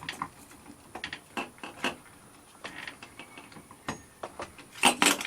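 Scattered small clicks and rattles of a keyless RV door lock's handle and hardware being handled and fitted, with a sharper pair of clicks near the end.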